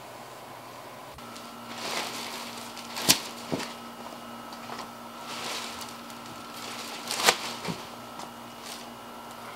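Rustling and shuffling as someone moves about on plastic sheeting around a large foam slab, with two sharp knocks about four seconds apart. A faint steady hum starts about a second in.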